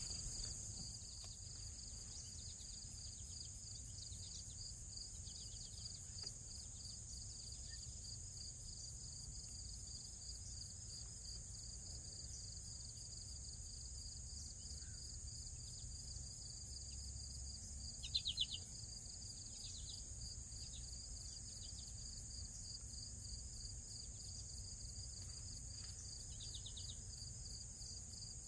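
Outdoor insect chorus: a constant high drone with a fast, even pulsing trill beneath it. A couple of short chirping calls rise over it, one about two-thirds of the way in and another near the end.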